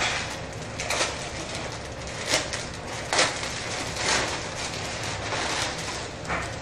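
Clear plastic poly bag crinkling and rustling as it is handled and opened to pull out a garment, with louder crackles about once a second.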